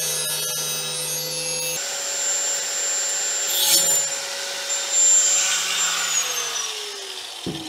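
Angle grinder with a cutoff wheel cutting through a thick stainless steel mixing bowl: a steady high whine over a grinding hiss. About six seconds in, the whine falls in pitch as the motor winds down.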